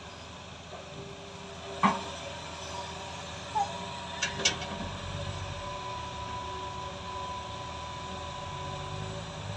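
Tracked hydraulic excavator working: its diesel engine runs steadily, with a sharp metallic clank about two seconds in and three more between three and a half and four and a half seconds as the boom swings out. A steady whine sets in about three and a half seconds in, and the low engine sound grows heavier from about five seconds as the bucket digs into the soil.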